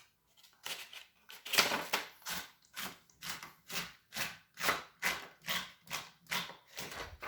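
1895 Williams No. 1 typewriter mechanism making an even series of short rasping strokes, about two a second.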